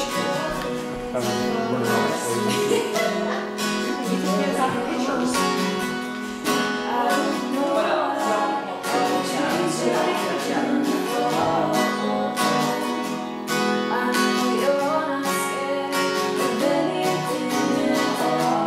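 Acoustic guitar strummed steadily, with a woman's voice singing along to it.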